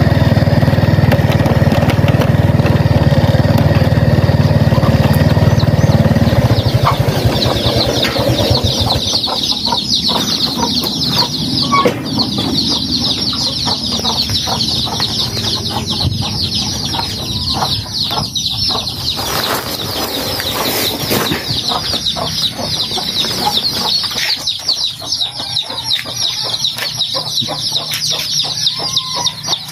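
A small engine runs steadily for the first six or seven seconds, then fades out. From then on a brood of young chicks cheeps continuously, many high peeps overlapping, with adult chickens clucking among them.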